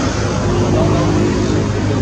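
Steady low motor drone under a wash of noise.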